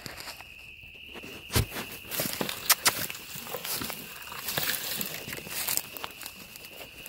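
Footsteps crunching through dry leaf litter, with twigs and undergrowth crackling and brushing past, and one heavy thump about one and a half seconds in. A steady high insect drone runs underneath.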